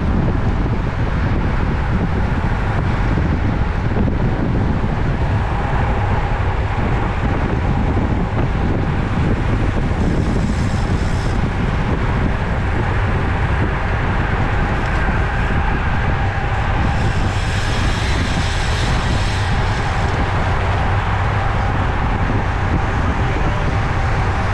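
Steady wind rush over the microphone of a camera on a road bike moving at race speed.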